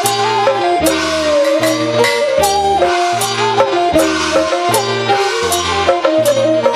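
Instrumental accompaniment for a Chinese folk song: a stepping melody over steady percussion, with a low beat about every 0.8 s.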